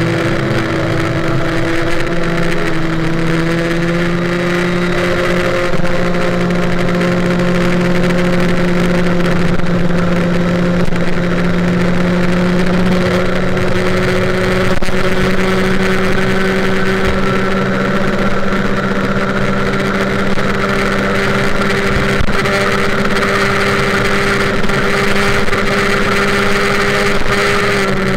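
Tuned MBK 51 moped's Bidalot G2RR 50cc two-stroke single, breathing through a Giannelli Black Gun expansion pipe, running flat out at high revs through a full-throttle run from a standstill to about 100 km/h. The pitch stays nearly level and creeps slowly upward the whole way, as the variator holds the engine high in its rev range while the speed climbs.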